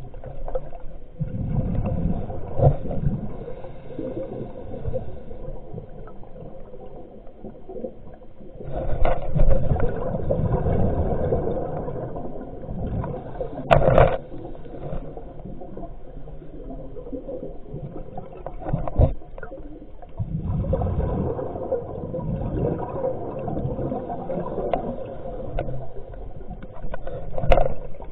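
Muffled underwater water noise with long bubbling, gurgling surges every several seconds and a single sharp knock about halfway through.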